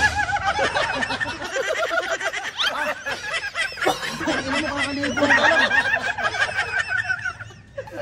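A group of men laughing.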